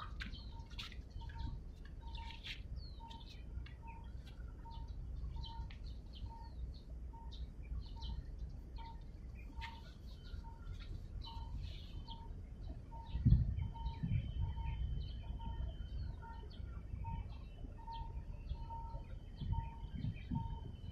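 Wind rumbling on the microphone, with a stronger gust about two-thirds of the way through, over scattered bird chirps. A faint short note repeats evenly, about three times every two seconds.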